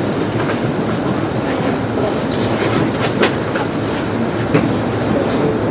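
Kintetsu 1259 series electric train heard from on board: a steady running rumble with a few sharp, irregularly spaced clicks.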